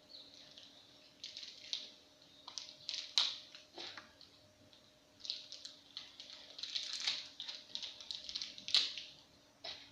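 A packet wrapper crinkling and crackling in irregular bursts as it is pulled and bitten at, hard to open.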